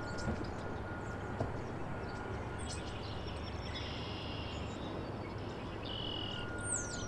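Outdoor city ambience: a steady low rumble of distant traffic, with a few high bird calls, short chirps falling in pitch near the end.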